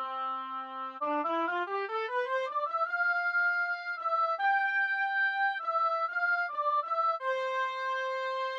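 A single sampled wind instrument from a brass SoundFont playing a solo melody: one held low note, then a fast rising run of short notes, then a phrase of longer held notes and short notes, moving into another long note near the end.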